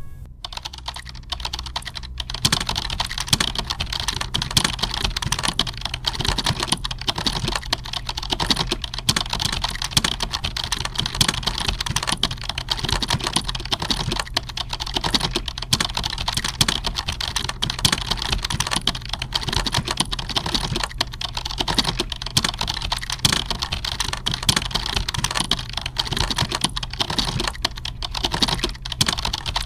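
Computer keyboard typing: a rapid, unbroken clatter of key presses that fills out about two seconds in, over a steady low hum.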